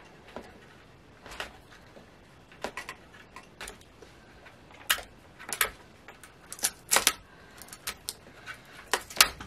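Protective plastic film being picked at and peeled off a mini exercise bike's small digital counter: irregular crinkles and fingernail clicks, a little busier in the second half.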